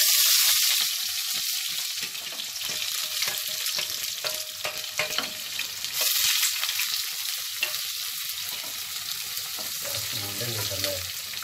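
Sliced onions hitting hot oil in a pot and sizzling, loudest right as they go in, then frying steadily while being stirred with a wooden spatula, with small scraping clicks throughout.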